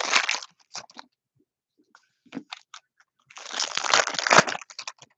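Foil trading-card pack wrapper crinkling as it is pulled open by hand. There is a burst at the start, scattered small crackles, then a longer crinkling burst about three and a half seconds in.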